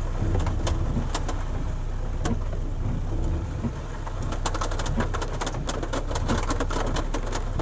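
Rain pattering on a pickup truck, heard from inside: many irregular sharp drops, thicker in the second half, over a low steady hum.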